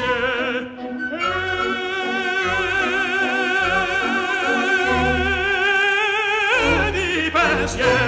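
An opera-style singing voice holds one long note with wide vibrato for about five seconds, after a short opening note, then ends on a brief wavering phrase.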